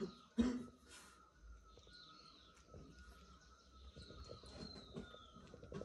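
Faint bird chirps over a quiet outdoor background, with a couple of short knocks about half a second in.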